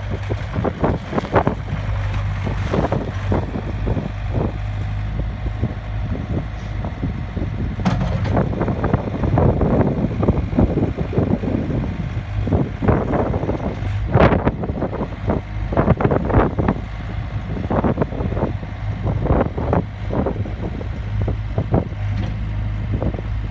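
Takeuchi TL130 skid steer engine running steadily, with irregular clanks and knocks throughout.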